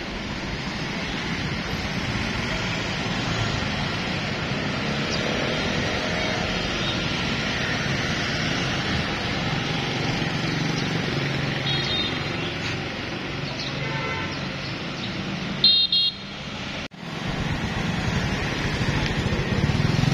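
Steady road traffic and engine noise, with a few short vehicle horn beeps in the last third, the loudest about three quarters of the way through. The sound briefly cuts out just after that loudest beep.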